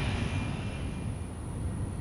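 Jet airliner engine noise receding: a low rumble that slowly fades, with a faint high whine that dies out about a second in.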